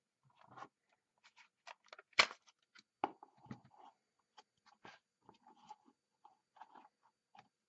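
Plastic clicks, snaps and rustles of a Honeywell Pro thermostat's front cover being pried off its wall plate by hand, with the sharpest snap about two seconds in.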